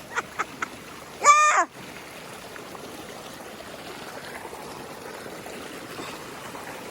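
Rain-swollen stream rushing steadily over small waterfalls after a week of rain. A short high-pitched cry about a second in, and a few quick vocal pulses at the very start.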